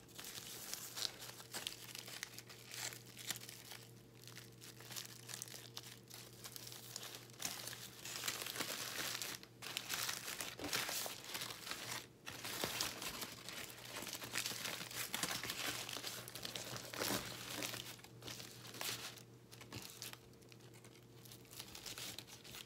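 Foil sandwich wrapper crinkling and crackling as it is unwrapped by hand and opened out flat, with a few brief pauses.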